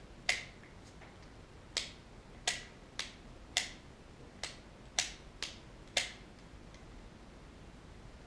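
Freshly cleaned and greased baitcasting reel being clicked repeatedly, its thumb-bar clutch pushed into free spool and popped back into gear: about nine sharp clicks at uneven spacing, stopping about six seconds in. The action is smooth.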